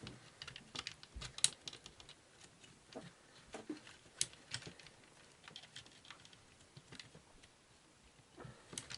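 Irregular small clicks and taps of plastic parts being handled and tried into place on an old clock radio, with a couple of sharper clicks about one and a half and four seconds in.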